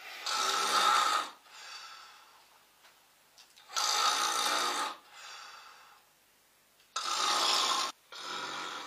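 A person snoring: three loud snores about three seconds apart, each followed by a fainter breath out.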